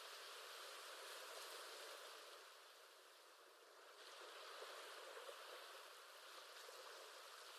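Faint recorded ocean waves: a soft, even surf wash that ebbs about three seconds in and swells back up.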